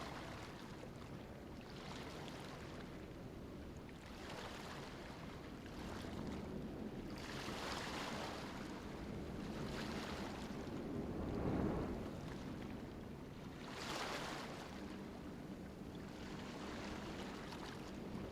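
Small waves on a sandy beach, washing in and out in swells every few seconds, over a steady low rumble.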